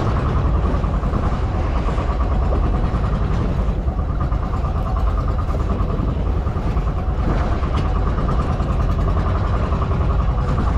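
An engine running steadily, a constant low drone with an even ripple, with no change in speed.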